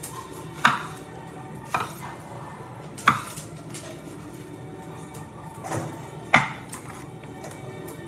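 Chef's knife cutting through tomatoes and knocking on a wooden cutting board: about five sharp knocks at uneven spacing, the last two close together near the end.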